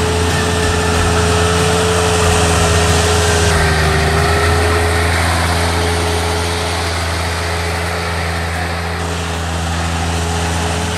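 Ride-on power trowel's engine running steadily under load as its twin rotors trowel wet concrete: a continuous engine drone with a low hum and a steady tone riding over it.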